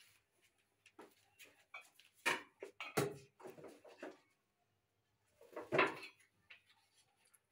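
Knocks and clatter of kitchen things being handled: a run of sharp knocks from about one to four seconds in, then another short burst about six seconds in.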